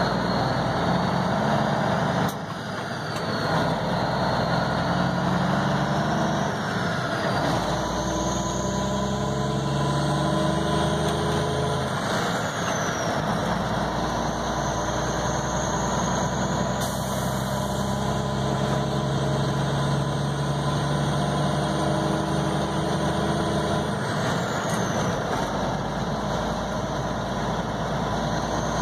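Heavy vehicle's engine running while driving at road speed, heard from inside the cab. The engine note shifts a few times, with a brief drop in level about two seconds in.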